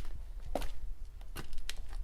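Footsteps walking at a steady pace, each step a soft thud followed by a light scuff, about one step a second.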